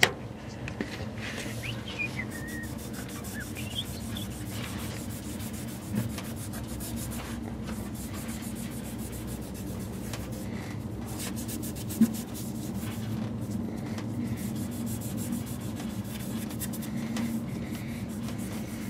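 Wadding of Nevr-Dull cotton metal polish rubbed back and forth over a ribbed engine valve cover, a steady rubbing to polish off the oxidation. Two short knocks sound, about six and twelve seconds in.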